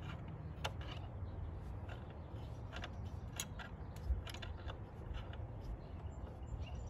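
Irregular metallic clicks from a hand wrench tightening the high-pressure fuel line nut on a direct-injection high-pressure fuel pump, over a low steady hum.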